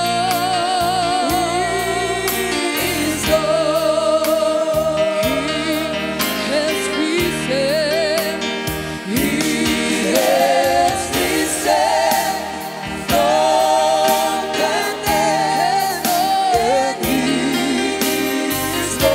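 Gospel praise-and-worship song: amplified male and female voices sing long held notes with vibrato over instrumental backing.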